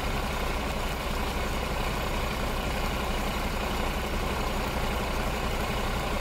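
Steady rushing of floodwater pouring across a road, with a low, steady engine rumble underneath.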